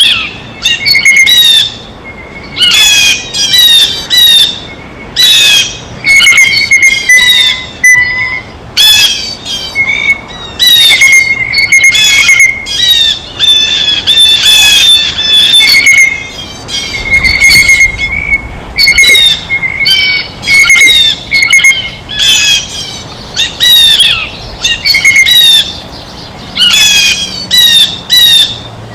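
Blue jays calling over and over: loud, harsh squawking jeers, repeated about once or twice a second in clusters with short pauses between them.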